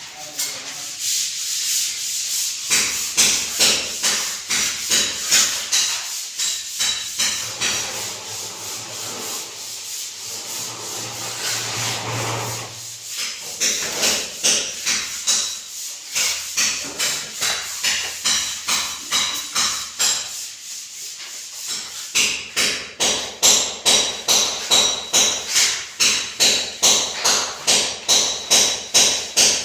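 Rhythmic rasping strokes of a hand tool worked back and forth against a hard surface, growing sharper and more regular, about two a second, near the end.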